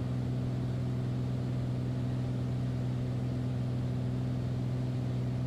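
Beechcraft Bonanza's piston engine and propeller droning steadily in flight, heard inside the cabin, a low hum that holds one pitch with no change in power.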